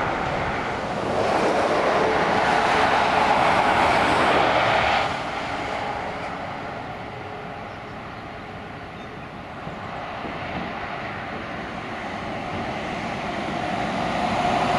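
Motorway traffic passing: tyre and engine noise of cars and lorries. It is loud for the first few seconds and drops off suddenly about five seconds in, then builds again toward the end as a DAF XF lorry draws near.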